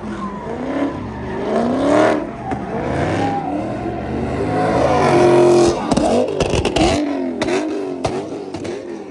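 Performance car engines revving hard and accelerating, their pitch climbing and falling again and again with throttle and gear changes.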